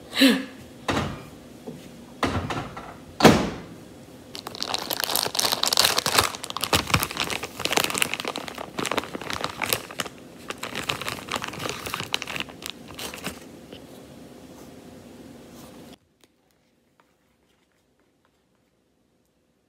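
Kitchen handling noises: a few sharp knocks, then about nine seconds of crinkling, rustling noise close to the microphone. The sound then cuts out abruptly to silence.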